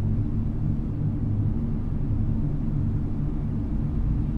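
Ambient music: a steady low drone of held bass tones with no beat, sounding like a distant rumble.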